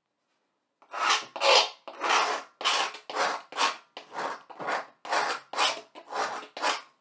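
A pointed hand tool scratching quick strokes into the surface of a blackboard, carving the lines of a picture. About a dozen separate scraping strokes, roughly two a second, start about a second in.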